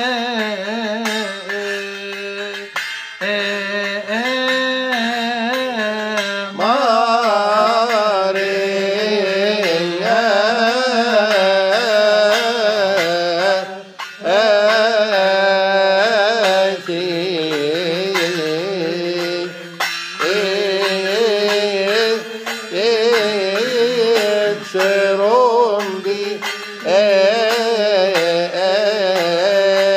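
Coptic Kiahk praise hymn chanted with a long, ornamented melody, kept in steady time by small brass hand cymbals struck throughout.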